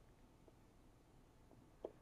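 Near silence: room tone, with one faint short click near the end.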